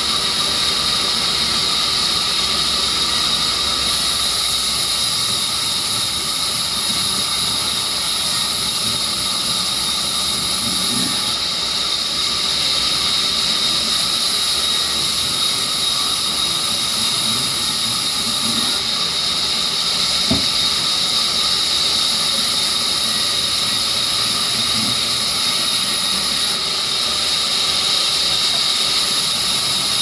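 Sawmill bench circular saw running and ripping wet rain tree wood: a steady high whine over hissing cutting noise.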